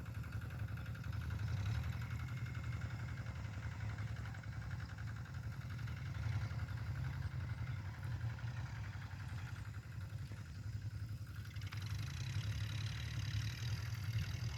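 Kubota tractor's diesel engine running steadily under load, a constant low drone.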